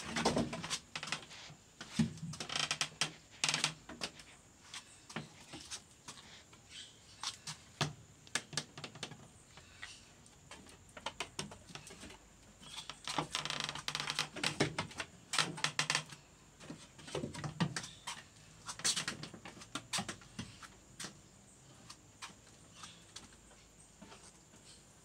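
Small hooves tapping and clattering on a wooden pallet floor as goat kids walk about, in irregular clusters of quick clicks.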